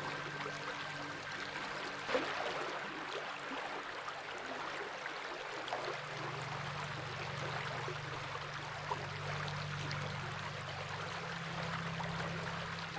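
Flowing water running steadily, like a stream, with a brief louder splash about two seconds in. Underneath is a low steady drone that shifts pitch about halfway through and again near the end.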